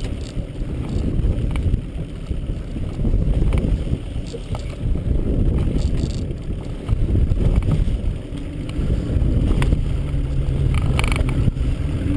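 Wind buffeting the microphone over the low running noise of a small fishing boat. A steady engine hum comes up in the last couple of seconds.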